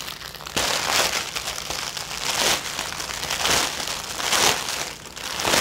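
Thin clear plastic bag crinkling in repeated bursts as hands open it and work through the small packets of diamond-painting drills inside, louder from about half a second in.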